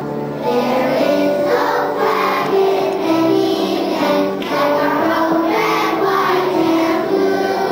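A group of young children singing together in unison as a choir, holding steady notes that step from one pitch to the next.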